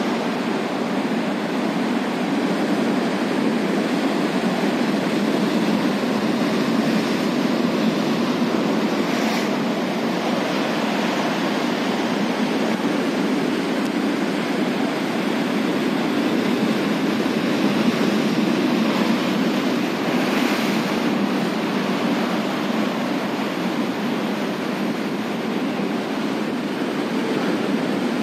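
Rough-sea surf breaking against a rocky shore: a steady rush of white water, swelling slightly now and then.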